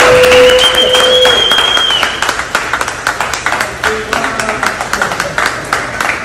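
Small group of onlookers clapping and cheering. A long held cheer rings out over the clapping for about the first two seconds, then the clapping goes on more quietly.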